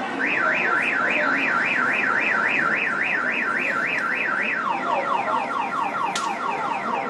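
Car alarm siren sounding: a fast up-and-down wail, which about five seconds in switches to a quick run of falling chirps.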